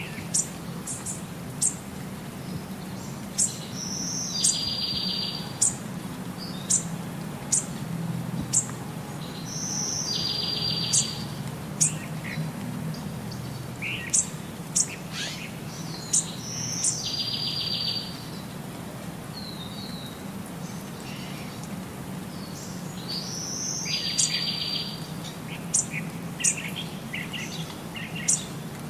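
Birds chirping: short, sharp high chirps come throughout, and a buzzy call about a second long repeats every six to seven seconds, over a low steady hum.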